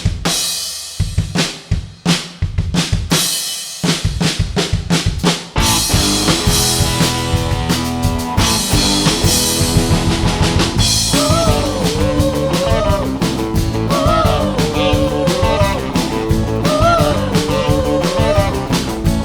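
Live rock band playing a song intro: drum kit alone at first, sharp snare and bass drum hits, then the full band joining about six seconds in, with a bending lead melody over it from about eleven seconds.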